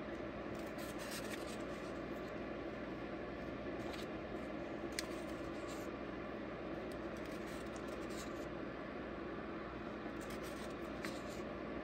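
Comic book pages being turned by hand: soft paper rustles and flicks several times, with one sharp tick about halfway through, over a steady low room hum.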